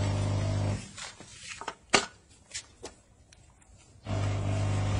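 Steam car-wash machine running with a low, steady electric buzz that cuts off about a second in. A few sharp clicks and knocks follow, the loudest about two seconds in, and then the buzz starts again near the end.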